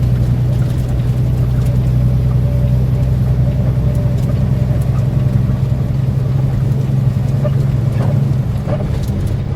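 Semi truck's diesel engine droning steadily, heard from inside the cab as the truck accelerates back up to interstate speed; the drone changes about eight and a half seconds in.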